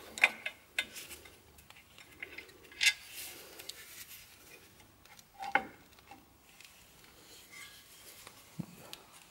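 Scattered light metallic clinks and knocks from clutch parts and bolts being handled and lifted off. The sharpest comes about three seconds in and another about five and a half seconds in.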